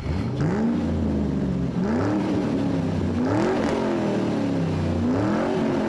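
Car engine revved repeatedly, its pitch rising and falling back about four times.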